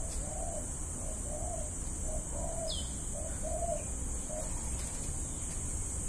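A dove cooing in a run of short coos, about two a second, that stops about four and a half seconds in. A steady high insect drone goes on underneath.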